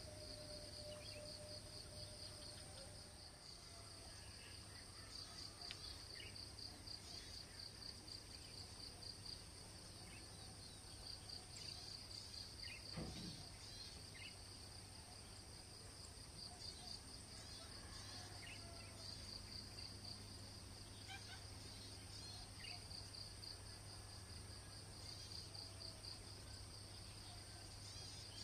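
Faint insect chorus: a steady pulsing high trill with a thinner steady high whine above it. Scattered short bird chirps are heard over it, and there is a brief falling sound about halfway through.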